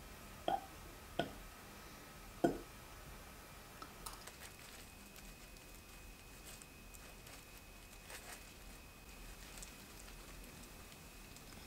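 Fork pressing down through a soft cream-filled sponge roll cake, giving three soft knocks in the first few seconds. After that come faint rustling and crinkling as hands in plastic gloves squeeze and pull the cake apart.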